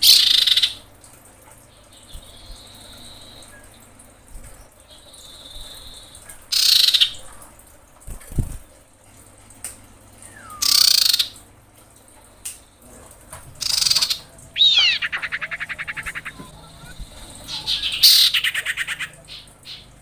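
Female common iora calling: loud harsh notes every few seconds, with softer whistled notes between them and fast rattling trills in the second half, one of them falling in pitch. This is the female's call to a male, used to stir male ioras.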